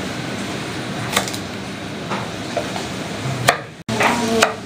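Chef's knife chopping on a wooden cutting board, a few sharp knocks as it cuts through carrot and then through Brussels sprouts.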